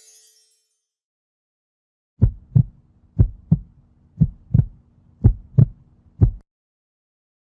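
Heartbeat sound effect: deep lub-dub double thumps, about one beat a second, starting about two seconds in and ending on a single thump.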